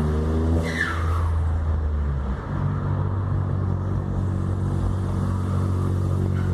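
VW Up TSI's turbocharged 1.0-litre three-cylinder engine pulling, then the throttle closes just after half a second in and the turbo's whistle falls away with a flutter, modified to be loud. The engine then runs on in a lower, steady note.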